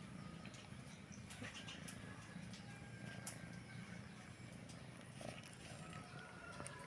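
A kitten purring faintly and steadily, with a few small clicks scattered through it.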